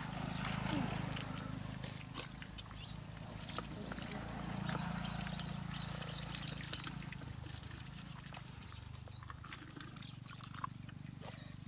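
Hands and feet squelching and sloshing through shallow muddy water, with scattered wet clicks and drips. A low steady hum runs underneath.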